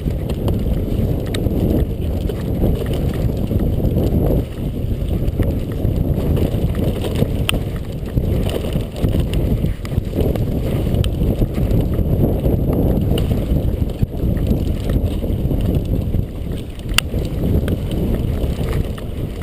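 Wind buffeting the microphone and rumble from a mountain bike rolling over a dirt trail, with a couple of sharp ticks from the bike.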